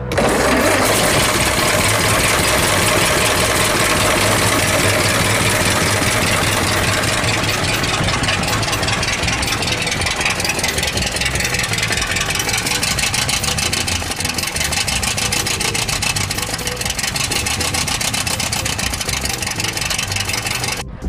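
1926 Ford Model T's four-cylinder flathead engine idling steadily, with a fast, even run of firing pulses.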